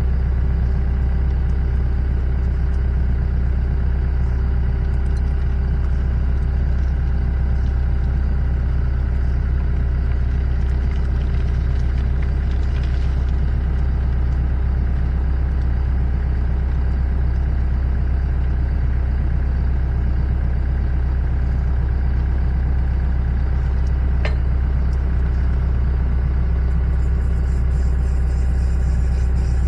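Steady low drone of the motor driving a homemade engine rotator as it slowly turns a 6-71 Detroit Diesel block over, with one light tick about three-quarters of the way through.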